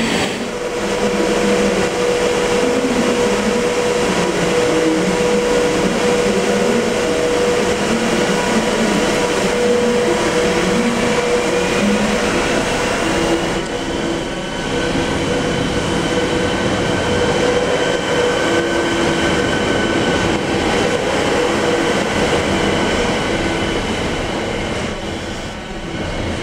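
Railway noise at a station: a steady hum with a whine rising in pitch shortly before the middle. After a cut, a ČD class 749 diesel locomotive runs slowly in over the points with its engine running and a thin, steady high whine.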